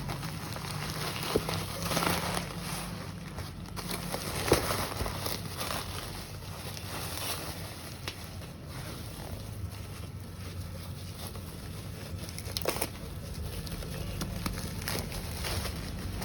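Packaging being handled during an unboxing: soft rustling and crinkling, with a few light knocks, over a steady low hum.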